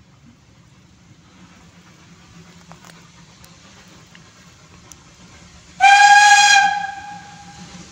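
Whistle of the Maria Fumaça, a narrow-gauge steam locomotive: one shrill blast about six seconds in, loud for about a second and then fading away, over a faint steady background hum.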